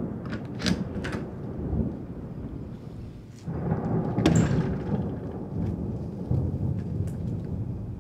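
Rolling thunder over steady rain, with a few sharp drip-like clicks; the rumble swells louder about three and a half seconds in.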